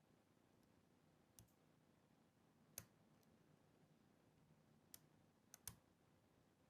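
Faint, sparse clicks of a half-diamond lock pick working the spool pins inside an ABUS padlock: about five clicks, two of them close together near the end, against near silence.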